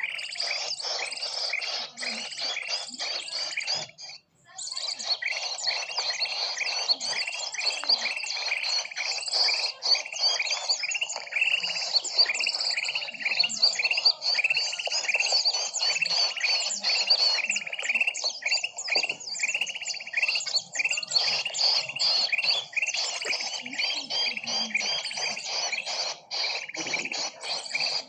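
A dense chorus of many small birds chirping rapidly over one another, a bird-lure (pikat) recording of mixed small species. It drops out briefly about four seconds in, then resumes.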